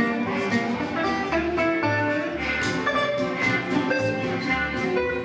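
Western swing band playing an instrumental break: an archtop electric guitar picking over fiddles, with a steady upright bass pulse underneath.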